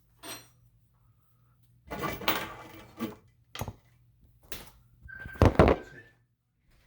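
Scattered knocks, clunks and clatters of tools and fittings being handled under a bathroom sink during a faucet supply-line install. The loudest cluster comes about five to six seconds in, with a short steady high tone alongside it.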